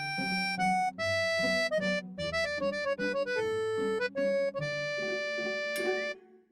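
Background music: a bright, accordion-like melody of held notes over a chordal accompaniment, which ends about six seconds in.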